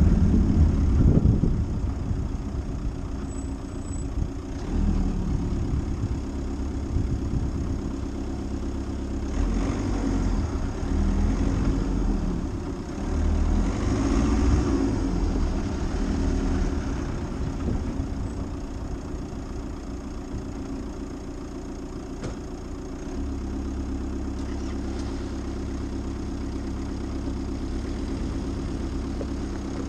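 Car engine running steadily at low revs, with louder rushing noise swelling twice in the middle.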